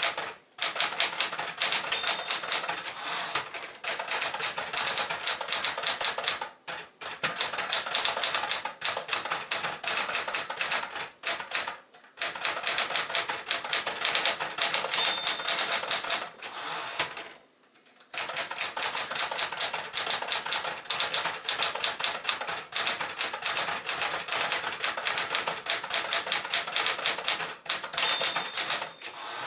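Manual portable typewriter, a 1972 Penncrest Caravelle 10 with a Smith-Corona Galaxie mechanism, typing in fast runs of key strikes broken by brief pauses. Its margin bell gives a short ring three times, about every thirteen seconds.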